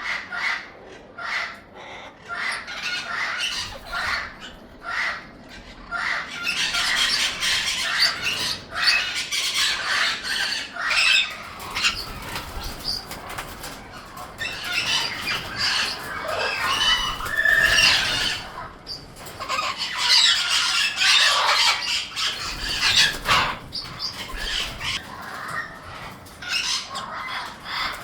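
Young Amazon parrots making harsh, raspy calls in irregular bursts, mixed with wing flapping and rustling.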